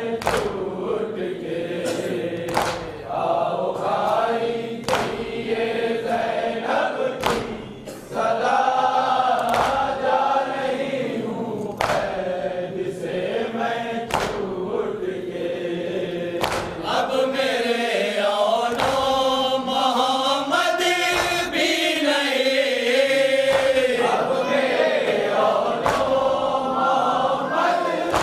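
A group of men chanting a nauha (Shia lament) together behind a lead reciter at a microphone, with sharp chest-beating strikes (matam) every second or two, mostly in the first half.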